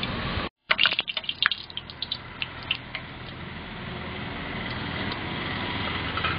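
Hot cooking oil in a metal frying pot sizzling and crackling, with a burst of sharp pops and spits about a second in that thin out into a steady hiss. The sound cuts out briefly about half a second in.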